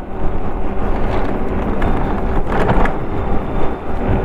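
Wind buffeting the microphone and tyre rumble from a Daymak e-bike riding on pavement, a steady loud rumble with a faint constant hum underneath.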